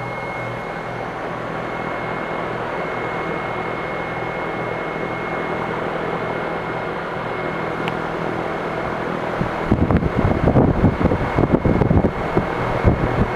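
Outdoor heat pump condensing units running: a steady fan rush with a low hum and a thin, high, steady whine. About two-thirds of the way through, irregular low buffeting on the microphone comes in over it.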